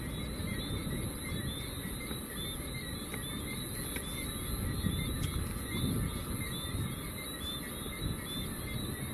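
A Boeing C-17 Globemaster III's four turbofan engines running at taxi power: a steady rumble with a high hiss over it. Faint short chirps repeat throughout in the background.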